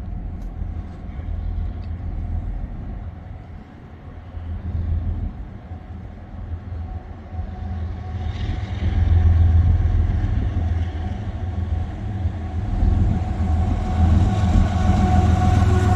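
A train approaching on the track, its running noise a steady low hum that grows louder about halfway through. Near the end a steady whine comes in over it.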